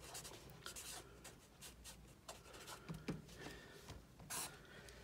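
Black felt-tip marker writing on paper: faint, scratchy strokes in quick succession as letters are formed, with one longer stroke about four seconds in.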